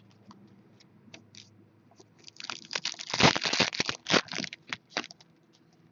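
Hockey card packaging and cards being handled: a few light ticks, then about three seconds of crinkling and rustling of plastic or foil wrapper.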